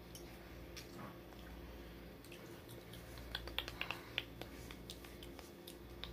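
Scattered light clicks and taps of hands handling the phone that is recording, bunched together in the middle, over a faint low steady hum.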